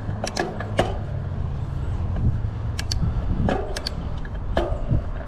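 Shimano Deore 1x12 mountain bike drivetrain shifting gears while riding: a series of sharp, irregular clicks from the shifter and the chain jumping across the cassette cogs, over a steady low rumble of the ride. The shifting shows a little roughness.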